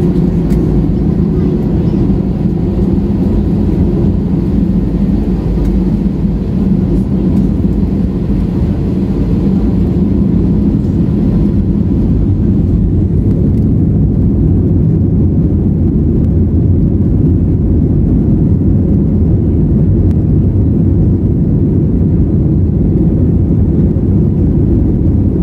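Airbus A320 cabin noise from a window seat while the airliner taxis before take-off: a steady, loud low rumble of the running jet engines and the airframe rolling on the ground.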